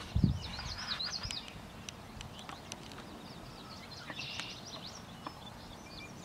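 Small birds chirping in runs of quick high notes, twice, with a brief low thump just after the start.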